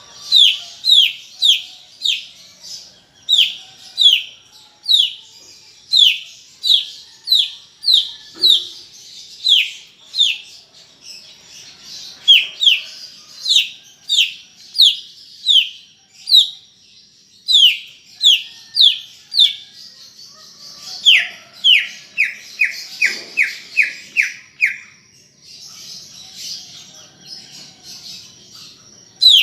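Cucak ijo (green leafbird) in full song: loud whistled notes, each sliding sharply down in pitch, repeated one or two a second. About two-thirds of the way through comes a quicker run of lower falling notes. A thin steady high tone and soft chatter lie beneath.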